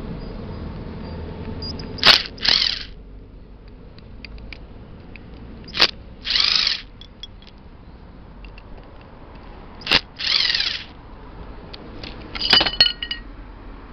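Electric impact driver backing out the screws of a single-cylinder carburetor's top cover. It runs in four short bursts, each a sharp click followed by a brief whir that rises and falls in pitch.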